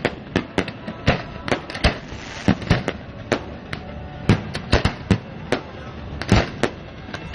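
Fireworks display: aerial shells bursting overhead in a rapid, irregular string of sharp bangs, about three to four a second.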